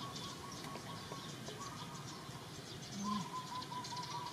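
Outdoor ambience of insects chirping in a steady high haze, with a faint pulsed call coming in about three seconds in.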